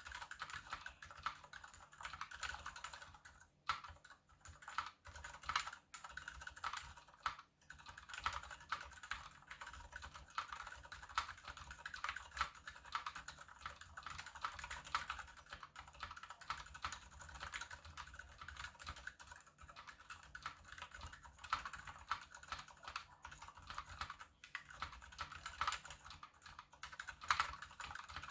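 Continuous fast typing on a KBD75 mechanical keyboard with unlubed Gateron Silent Brown tactile switches, brass plate and PBT DSA keycaps: a dense run of muted keystroke clacks with a few short pauses.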